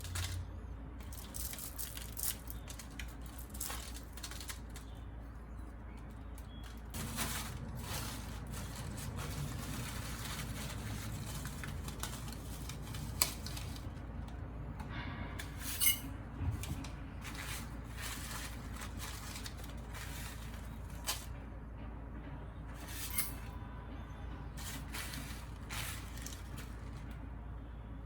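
Scattered small clicks, taps and rattles, as of things being handled, over a steady low hum; a few sharper clicks stand out about halfway through and again near the end.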